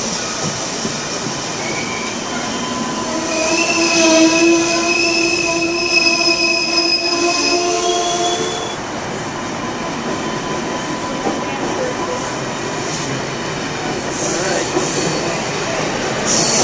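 Amtrak Amfleet passenger cars rolling past along the platform. From about three seconds in, a high squeal of several steady tones rises over the rolling noise and fades out a few seconds later.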